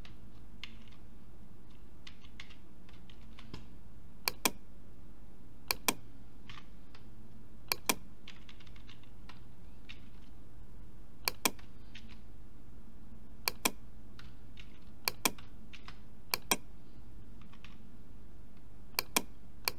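Computer keyboard and mouse clicks: sharp clicks in pairs every couple of seconds from about four seconds in, with fainter small ticks between them, over a low steady hum.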